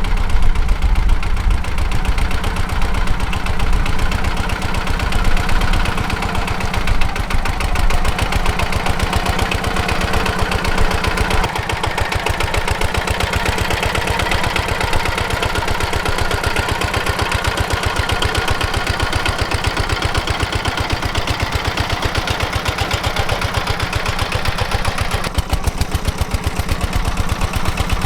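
Zubr walk-behind tractor's engine running steadily with rapid, even firing pulses while it drives the rotary tiller through the soil. The tone shifts slightly about a third of the way in and again near the end.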